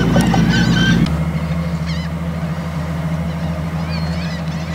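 A boat engine running with a steady low hum while many birds call over it in short, arching cries. About a second in, the sound changes abruptly and the bird calls thin out to a few.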